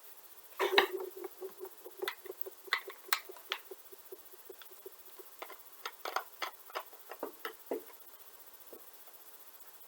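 Small clicks and taps of tools on the plastic and metal parts of a gel blaster being worked apart by hand. A louder clatter comes about a second in, then irregular light ticks for several seconds.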